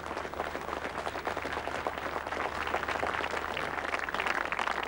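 Crowd of spectators applauding: dense, steady hand-clapping that grows slightly louder toward the end.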